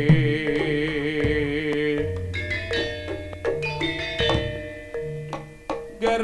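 Javanese gamelan music accompanying a jaranan dance: a held, wavering melodic line over struck bronze metallophones for about two seconds, then separate ringing metallophone notes with drum strokes.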